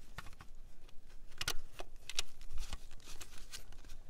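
Scattered light clicks and taps of a wrench and an oil pressure sender socket tool being set on and turned by gloved hands, threading a new oil pressure sender into a 6.5L diesel engine. The clicks come a second or so apart, then a few come closer together near the end.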